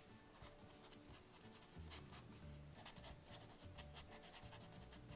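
Faint, quick short strokes of a black brush-tip pen on sketch paper, flicking in grass: a rapid run of light scratches.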